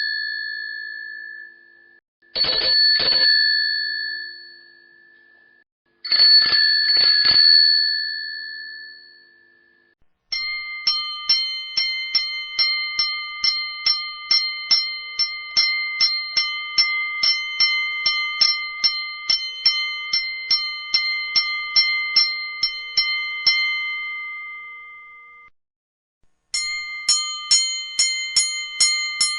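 Three bicycle bell rings, each a quick double or triple ring-ring that rings on and dies away. Then a railroad level-crossing signal bell strikes over and over at an even pace, a bit more than two strikes a second, for about fifteen seconds before fading out. A second crossing bell with a brighter tone starts the same fast strikes near the end.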